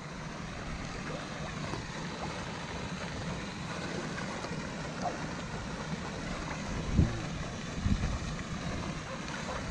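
A steady rush of water from a pond fountain's jet falling back onto the surface, with two short, louder low sounds about seven and eight seconds in.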